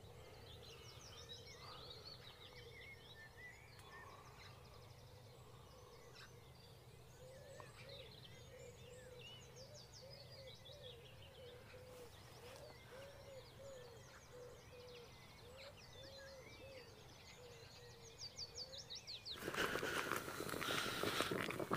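Faint morning birdsong: small birds chirping and trilling, with a lower call repeated about twice a second through the middle, over a faint steady hum. Near the end, louder rustling and handling noise begins.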